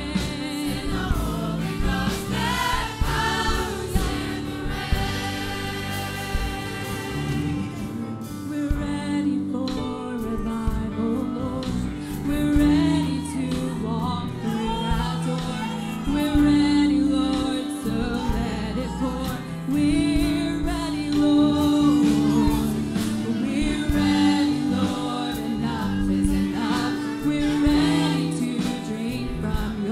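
Congregation and worship band singing a gospel worship song together, with long held notes.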